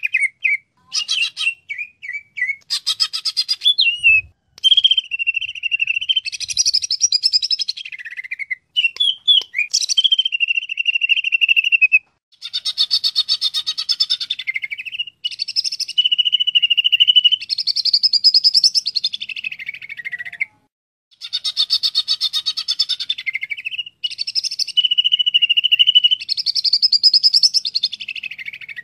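Green leafbird (cucak ijo) singing a long, varied song of fast chattering trills and held whistled notes, in phrases several seconds long with short breaks between them.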